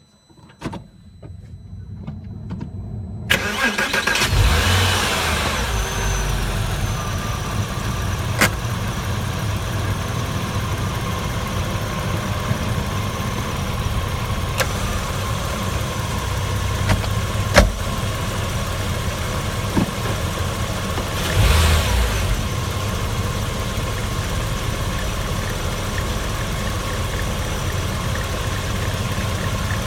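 Porsche Boxster 986 S's 3.2-litre flat-six engine running steadily. It swells louder twice, a few seconds in and again about two-thirds of the way through, with a few sharp clicks in between.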